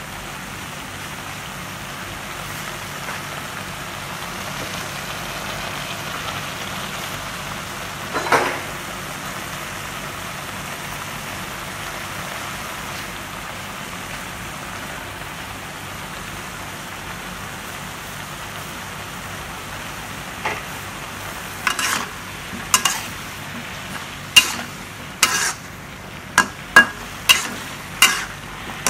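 Pork belly, squash and shallots sizzling steadily in a wok. A single clack comes about eight seconds in, and from about twenty seconds in a spatula stirring and striking the wok gives a quick run of sharp clacks.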